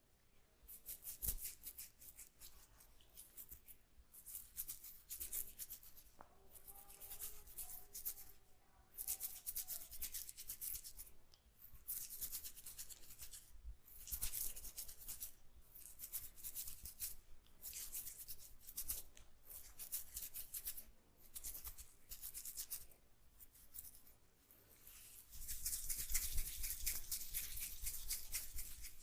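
Hands rubbing and kneading an oiled scalp and hair, a crackly, wet rustling in bursts of strokes with short pauses between them, longest and loudest near the end.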